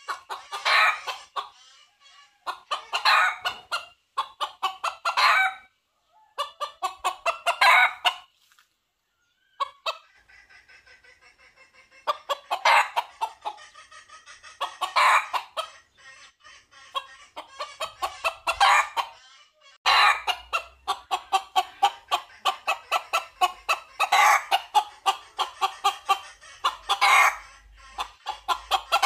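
Red junglefowl rooster calling for hens: rapid runs of short clucking notes in bursts of one to two seconds, repeated over and over with brief gaps.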